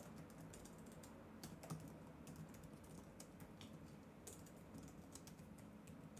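Computer keyboard typing: faint, irregular keystroke clicks.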